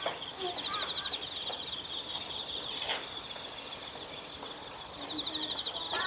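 Outdoor ambience: a steady high-pitched chirring that pulses louder shortly after the start and again near the end, with faint scattered calls.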